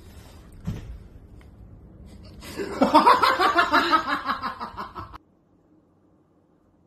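A soft thump about a second in, then a loud burst of human laughter lasting about three seconds that cuts off abruptly.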